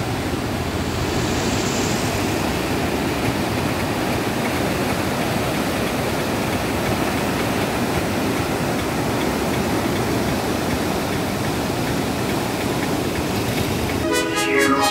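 Water rushing steadily out of an open dam spillway gate, an even unbroken rush. Electronic music comes in near the end.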